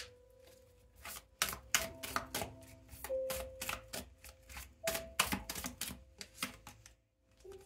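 A deck of tarot cards being shuffled by hand: a quick run of card slaps and clicks that starts about a second in and stops shortly before the end, over soft background music.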